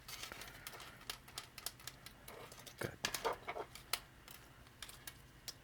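Small 3D-printed plastic robot-leg parts and a servo being handled, with a scatter of light clicks and taps.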